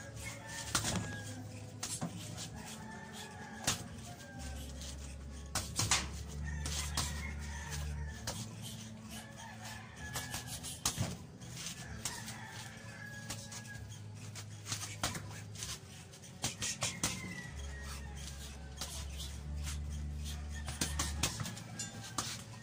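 Irregular sharp slaps of fists hitting a hanging homemade reflex ball during boxing practice, over crowing roosters and music with a deep steady bass.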